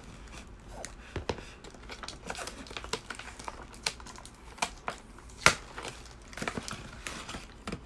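Clear plastic figure packaging, a blister tray and a thin plastic bag, crinkling and crackling as it is handled and pulled apart. The crackles come irregularly, the loudest one about five and a half seconds in.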